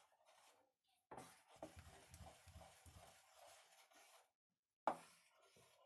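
Thick maalpua batter being stirred fast in a steel bowl: a soft scraping of quick rhythmic strokes, mixing it smooth with no lumps. The stirring pauses briefly about four seconds in and starts again with a sharp tap, the loudest sound.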